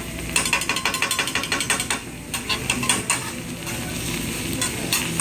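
Hibachi chef's metal spatulas clacking rapidly on the griddle, about eight clacks a second for the first couple of seconds, then scattered taps over food sizzling on the hot plate.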